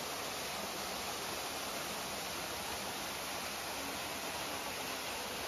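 Steady rushing of a small waterfall spilling down a rock face into a pool.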